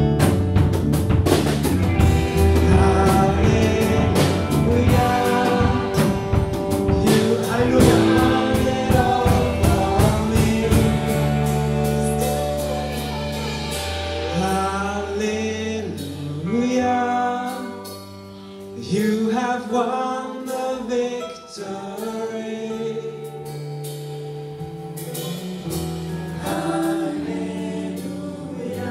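Live worship song played by a small band: a woman singing lead over acoustic guitar, electric guitar and bass guitar. The busy rhythmic backing thins out about a third of the way in, leaving the voice over held bass notes.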